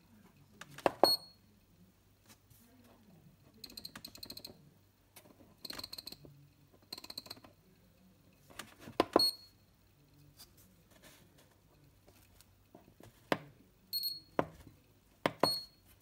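Rotary encoder knobs on a kitchen timer, pressed with sharp clicks, each press answered by a short high beep from the timer's buzzer, four beeps in all. About four to seven seconds in come short runs of rapid clicking as a knob is turned through its detents.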